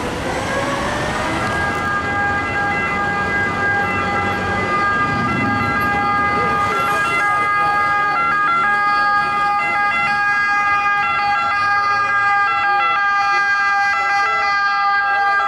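Emergency vehicle siren winding up in pitch over the first second or two, then holding one loud, steady tone, over city traffic noise.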